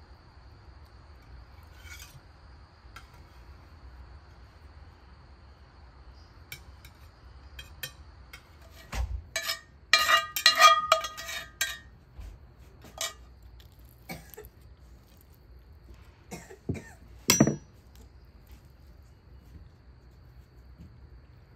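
Tableware clinking and clattering as roasted fish is plated: a skillet, ceramic plates and metal cutlery knocking together. There are scattered light clicks, a burst of ringing clinks around the middle, and one sharp knock a few seconds later.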